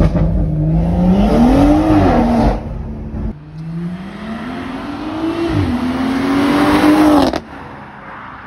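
BMW M140i's turbocharged straight-six with a sports cat and a double resonator delete, revving hard in two short clips: first heard from inside the cabin, then from the roadside. In each clip the engine pitch climbs and then falls off, and the second clip cuts off abruptly near the end.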